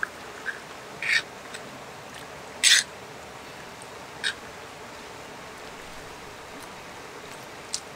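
Spoons and forks scraping and clinking on metal plates as two people eat. There are half a dozen short scrapes, the loudest about two and a half seconds in, over the steady rush of a river.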